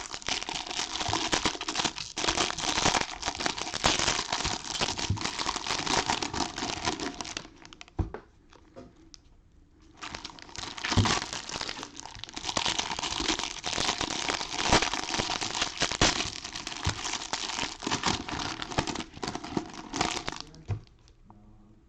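Foil trading-card pack wrappers being torn open and crinkled, in two long bouts with a short pause and a single knock between them.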